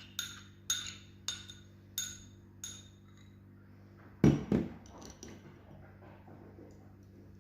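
Five light, ringing metal clinks about two-thirds of a second apart, from a kitchen strainer and spoon knocking against a bowl while grated red onion is strained for its juice. A heavier double knock follows about four seconds in, then a few small clicks.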